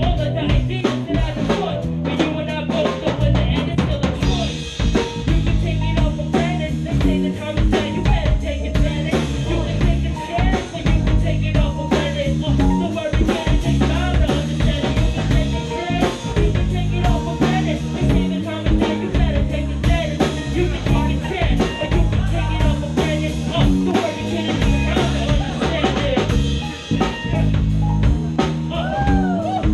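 Live band playing: electric bass guitar and drum kit, with a busy stream of drum hits over moving bass notes.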